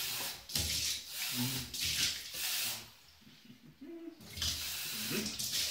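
Kitchen tap running into a drinking glass as it is rinsed, with water splashing into a stainless steel sink. The flow breaks off about three seconds in, and water splashes again a second later as the glass is tipped out and rinsed.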